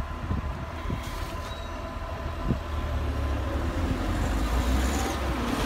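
Low rumble of vehicles at a level crossing while the barriers lift, growing louder toward the end, with wind buffeting the microphone.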